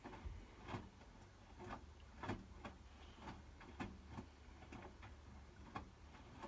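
Hotpoint WMFUG 942 front-loading washing machine running a synthetics cycle with a load of bedding: the drum turning, with faint irregular clicks and soft knocks about twice a second over a low hum.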